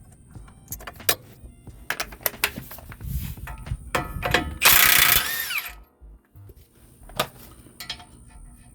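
Socket wrench clicking and metal tool rattles as a fastener is worked loose, with a loud burst of about a second near the middle, its pitch falling as it stops, typical of a cordless impact wrench spinning a nut off.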